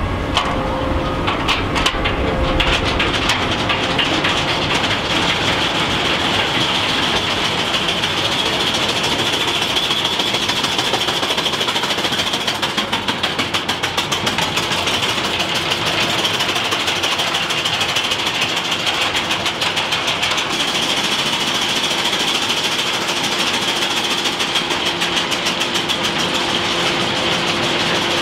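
Soquet roller coaster train being hauled up its chain lift hill: the lift chain and drive run steadily with a high whine and rapid, continuous clicking of the anti-rollback ratchet.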